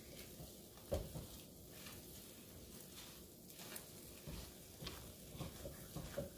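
Thick purple yam (ube halaya) paste being stirred and folded in a pan, giving faint, soft, irregular squishy knocks, one a little louder about a second in.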